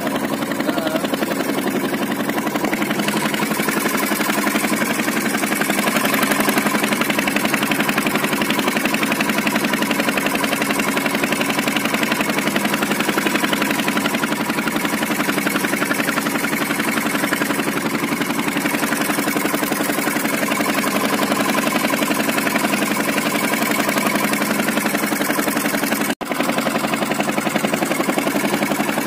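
Motor of a small wooden fishing boat running steadily under way, a constant drone that breaks off for an instant near the end.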